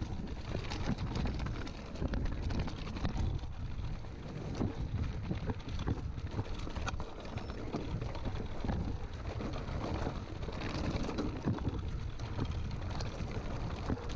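Mountain bike riding downhill over a stony, grassy singletrack: wind buffets the microphone over a low rumble of tyre noise, with a steady run of small knocks and rattles as the bike goes over stones.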